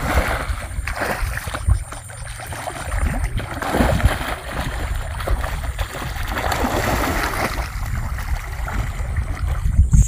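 A large hooked fish thrashing and splashing at the surface of shallow water as it is played on a rod, in irregular splashes with louder ones about four seconds in and near the end.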